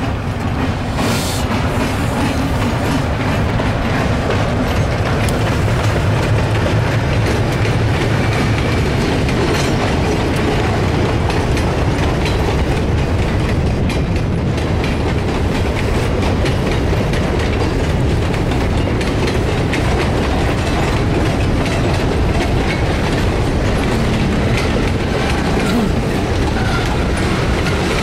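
Freight train led by an EMD SW9 switcher rolling past: boxcars and gondolas go by with a steady rumble and the clickety-clack of wheels over rail joints.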